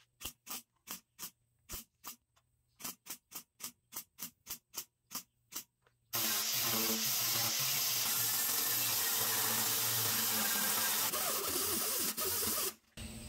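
MIG welder stitching a steel patch panel with a quick string of short bursts, each a fraction of a second with brief gaps, about seventeen in six seconds. The bursts are spot welds built up around the patch. About halfway through, an angle grinder starts and runs steadily, grinding the welds down smooth, before cutting off near the end.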